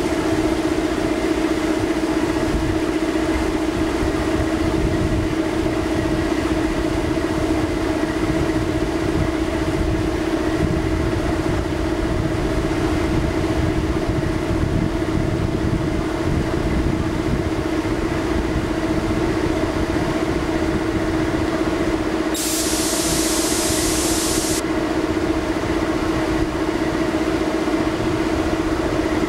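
Diesel engines of a Type 148 fast attack craft running steadily under way: a continuous drone with a strong steady hum over a low rumble. About three-quarters of the way through, a brief high hiss lasts a couple of seconds.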